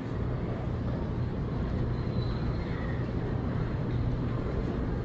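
Steady background noise of an airport terminal: a continuous low hum and rumble of air handling and distant machinery.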